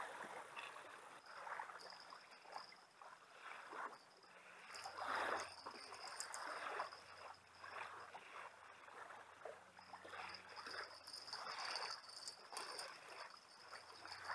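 Soft swishing of water at a kayak and of a fishing reel, coming about once a second, while a hooked fish is reeled in on a bent rod. A faint, steady high whine comes and goes.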